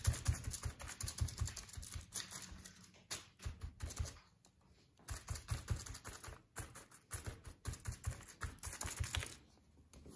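Cleaning sponge dabbing acrylic paint onto crumpled aluminium foil on paper: a run of quick taps with dull thuds on the table, pausing briefly about four seconds in and again near the end.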